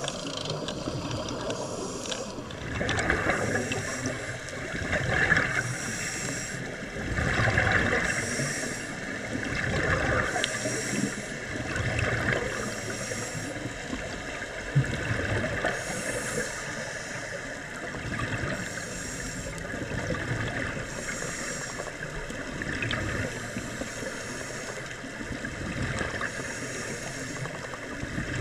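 Scuba diver breathing through a regulator underwater: each breath brings a hiss and a gush of exhaled bubbles, in a slow rhythm about every two and a half seconds. A single sharp click sounds about halfway through.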